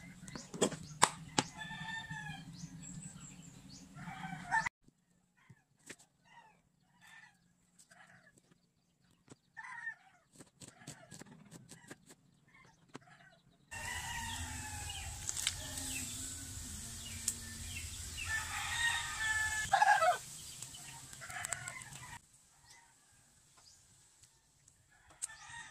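Chickens clucking and calling repeatedly, with a rooster crowing among them. Sharp knife taps on a cutting board come in short runs as an onion is sliced.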